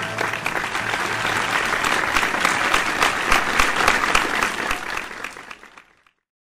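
Audience applause, dense clapping that builds and then fades out near the end.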